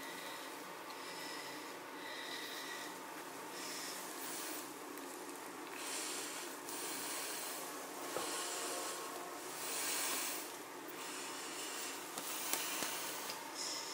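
A person breathing hard and rhythmically, a hissy breath in or out about every second, some breaths carrying a faint whistle. A couple of small clicks come in the second half.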